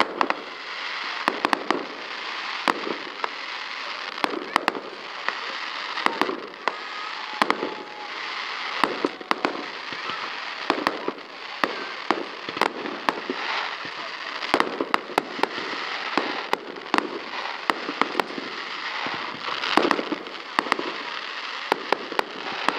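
Fireworks display: sharp bangs of bursting aerial shells, irregular and coming about two a second, over a continuous crackling hiss.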